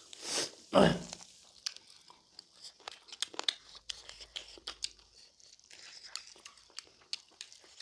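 Close-miked eating sounds: wet chewing, lip smacks and crunchy bites of smoked pork and rice, with a brief, loud mouth sound about a second in.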